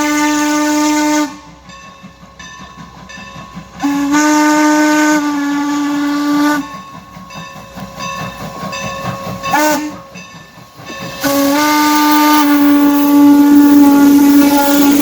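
Steam locomotive whistle on Norfolk and Western No. 475 blowing the long, long, short, long grade-crossing signal: the end of one long blast, a second long blast, a brief toot and a final long blast, with steam hissing between them.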